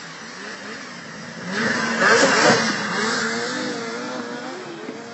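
Racing snowmobile passing close by at speed, its engine swelling to a loud peak about two seconds in, then fading as it pulls away.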